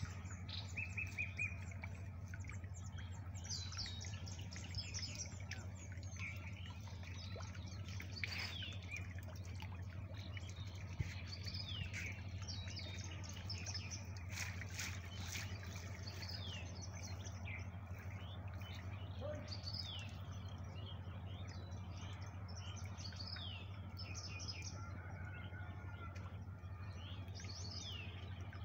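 Small birds chirping and calling, many short high falling notes repeated throughout, over a steady low hum, with a few brief sharp sounds near the middle.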